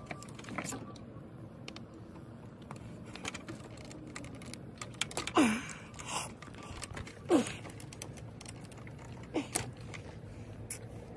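Small clicks and taps of a screwdriver working at a shifter cable end and its bushing, with three short squeaks that fall in pitch about five, seven and nine seconds in.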